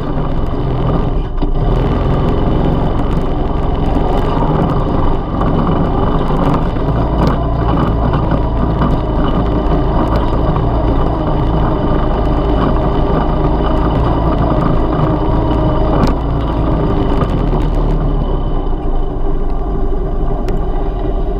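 ATV engine running steadily as the machine rides over a bumpy dirt trail, with a few short knocks from the bumps.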